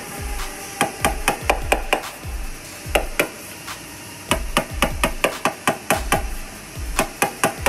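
Body hammer tapping a Buick's sheet-metal wheel-arch panel, quick light metal taps in irregular runs of several a second, working out a dent.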